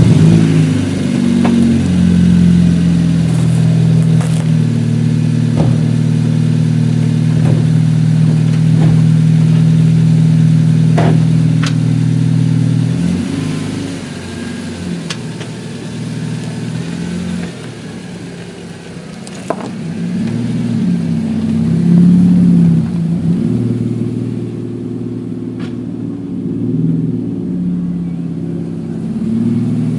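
Honda Civic FN hatchback's engine running through a custom exhaust with the back box deleted. It idles steadily for about the first thirteen seconds, then its note rises and falls as the car pulls away.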